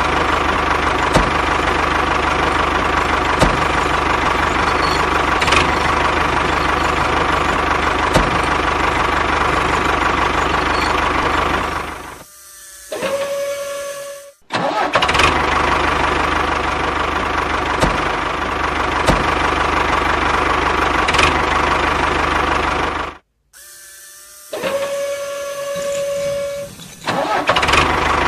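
A motor running steadily with a constant whine. About twelve seconds in, and again about twenty-three seconds in, it drops away for a few seconds to a quieter single held tone before the running sound returns.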